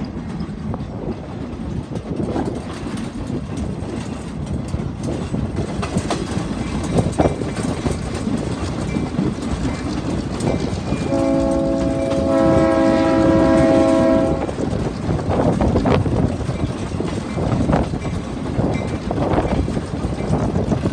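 Excursion train rumbling along with rail clatter; about eleven seconds in, the locomotive's horn sounds a long chord of several tones for around three seconds.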